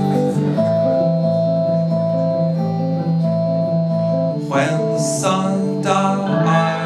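A live band plays the opening of a slow song: a steady drone of held tones under plucked strings. A wavering, sliding line comes in a little past the middle.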